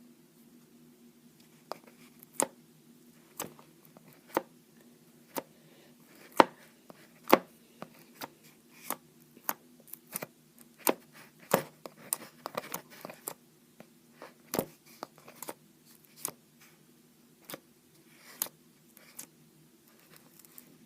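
Fluffy slime being squeezed and poked by hand, giving sharp pops and clicks at irregular intervals, about one or two a second, over a faint steady low hum.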